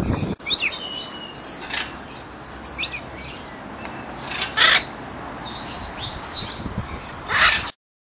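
Hawk-headed parrot calling: a few short chirps and whistles, then two loud, harsh squawks, one about four and a half seconds in and one near the end, where the sound cuts off suddenly.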